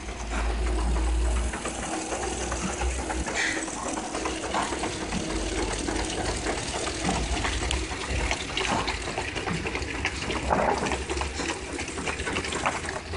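Diehl veneer splicer running steadily, with a strong low hum that is loudest for the first second and a half. Over it come many small ticks and the rustle of thin mahogany veneer sheets being handled.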